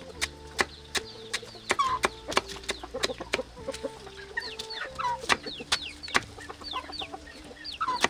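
Chickens clucking, with many short, high, falling peeps, over a run of sharp knocks about two to three a second.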